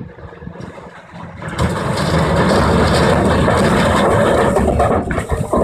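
A load of large armour-stone rocks slides off the raised tipper body of an articulated dump truck and crashes into the sea beside a barge: a loud rumbling crash and splash that starts about a second and a half in and lasts about three and a half seconds.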